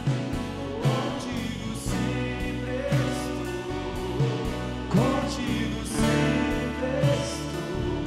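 Catholic worship song: a band playing with voices singing, and a beat about once a second.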